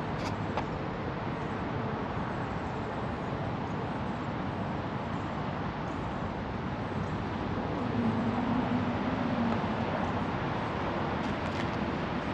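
Steady outdoor background rumble of distant road traffic, swelling a little with a low hum about eight seconds in.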